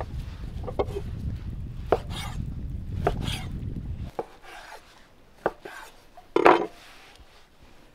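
Knife chopping on a wooden cutting board: a handful of separate strokes with a low rumble under the first half, and a louder, briefly scraping stroke near the end.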